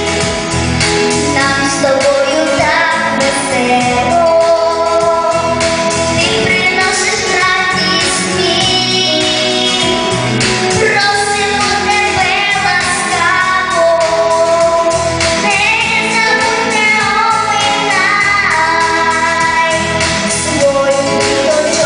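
A female voice singing a song over instrumental accompaniment.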